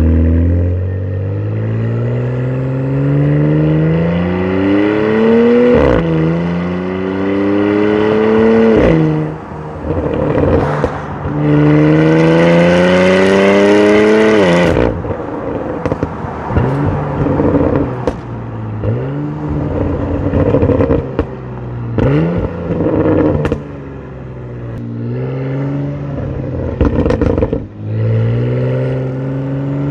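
Porsche Cayenne GTS twin-turbo V6 engine and exhaust under hard acceleration. The pitch climbs in each gear and drops sharply at each upshift. In between there are throttle lifts and downshift blips, with the exhaust crackling and popping.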